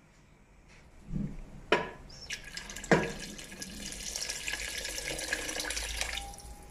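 Water poured from a glass jug into a pot of tomato sauce: a steady splashing pour that stops shortly before the end, with a couple of sharp knocks just before it starts.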